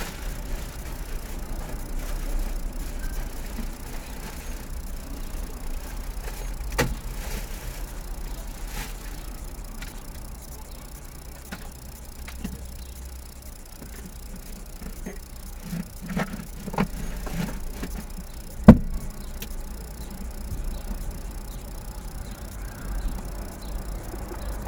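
Vehicle engine idling steadily, heard from inside the cab, with scattered clicks and knocks and one sharp knock about three quarters of the way through.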